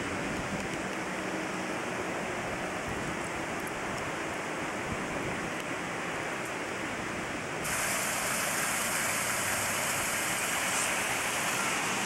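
Steady rush of running water. It suddenly gets brighter and a little louder about two-thirds of the way through.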